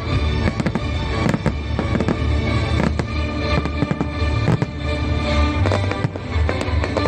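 Fireworks bursting in quick, irregular succession, many bangs and crackles over loud music with heavy bass.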